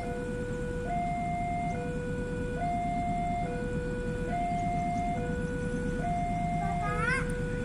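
Railway level-crossing warning alarm sounding a steady two-tone signal, a higher and a lower note taking turns a little under once a second each, over a steady low rumble. A short rising chirp cuts in about seven seconds in.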